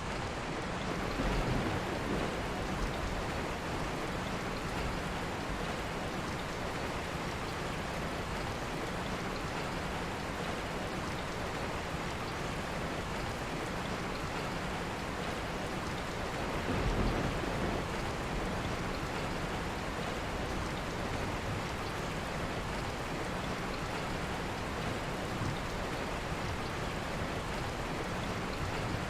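Steady rain falling in an even, dense hiss, with two brief louder swells in the low end, about a second in and about halfway through.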